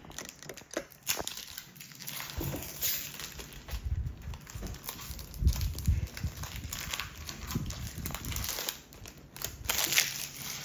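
Foil Pokémon booster pack wrapper crinkling and tearing as it is opened by hand, in irregular crackling bursts with a few dull handling thuds in the middle.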